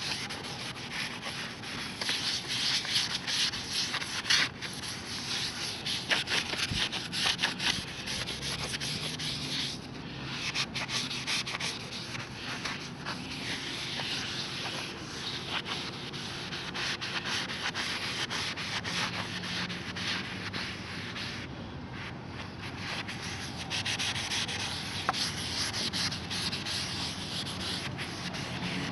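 An abrasive scrub sponge rubbing over a brass door kickplate in continuous rapid back-and-forth strokes, with a rough, scratchy sound. The scrubbing eases off briefly twice, about a third of the way in and again a little past two thirds.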